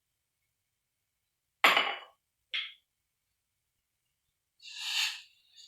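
Kitchen vessels knocking and clinking: a sharp knock a little over a second and a half in that rings briefly, a short clink about a second later, and a brief rustling noise near the end.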